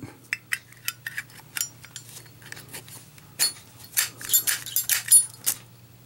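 Sharp metallic clicks and clinks of a Zippo lighter being handled: the steel insert pushed back into its case, then a quick run of clicks about halfway through as the lid snaps open and the flint wheel is struck, and the lighter lights.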